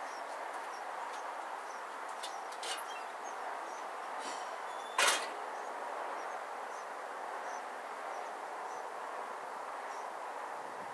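Steady outdoor background noise with a single sharp knock about five seconds in.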